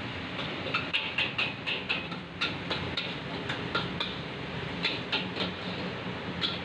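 Metal ladle and spatula clanking and scraping against a wok as fried noodles are tossed, several uneven strikes a second over a steady rushing background.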